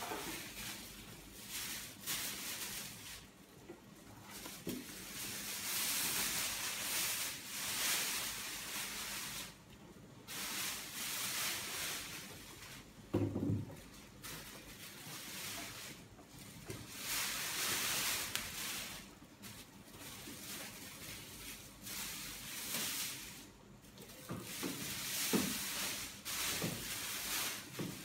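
Clear plastic wrapping film crinkling and rustling in repeated bursts as it is pulled off a boxed wall panel. A single dull knock comes about halfway through and a few lighter knocks near the end as the panel is handled on the tiled floor.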